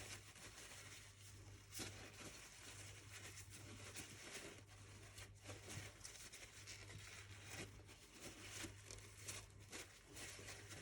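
Near silence: faint rustling and light clicks of hands handling small parts and tissue, over a steady low hum.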